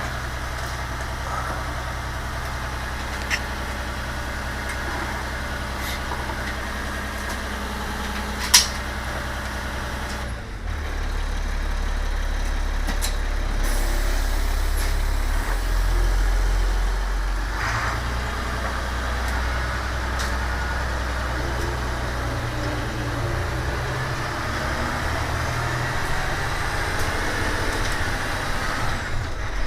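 Diesel engine of a 1999 Amtran school bus idling steadily, then about ten seconds in it gets louder and runs under load as the bus pulls away and drives. A single sharp click about eight seconds in.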